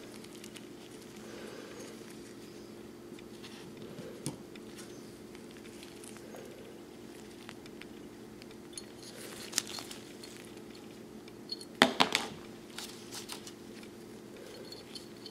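Brass frame and small steel parts of a disassembled 1851 Colt Navy cap-and-ball revolver handled by gloved hands: scattered light metal clicks and taps, with a quick cluster of sharper clicks about twelve seconds in, over a steady low hum.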